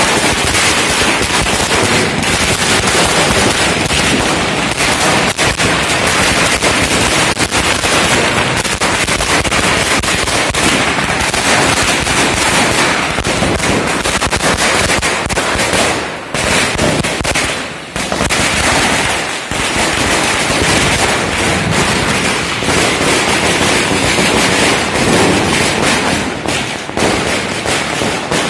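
Diwali firecrackers going off in a loud, dense, rapid run of cracks and bangs, like a long string of crackers, with a couple of brief lulls past the middle.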